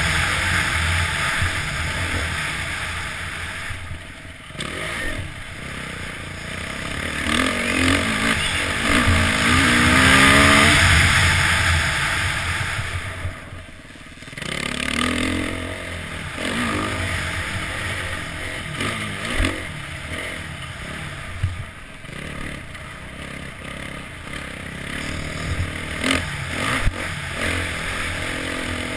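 Motocross bike engine ridden hard, revving up through the gears and easing off, with the pitch climbing twice: from about 7 to 11 seconds in and again just after the middle.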